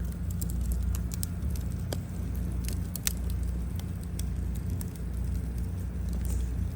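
Wood fire crackling, with irregular sharp pops and snaps from the burning firewood over a steady low rumble; the loudest snap comes about three seconds in.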